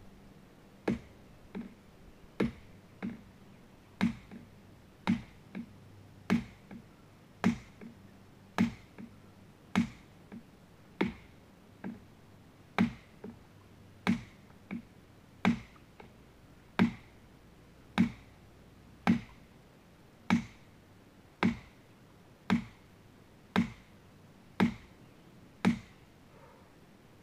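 A hammer striking the top of an 8-foot ground rod, driving it into hard, rocky clay soil. The sharp strikes come a little more than once a second, with a few lighter taps between them in the first half, and stop near the end.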